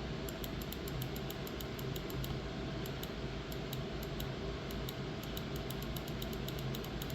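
Light, rapid, irregular clicking from computer controls while browsing web pages, over a steady low hum.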